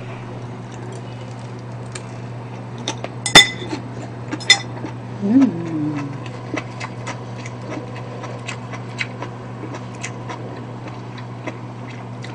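Chopsticks and a spoon clinking against ceramic bowls twice, sharply, about three and four and a half seconds in, then a brief hummed "mm" and faint chewing clicks while a person eats. A low steady hum runs underneath.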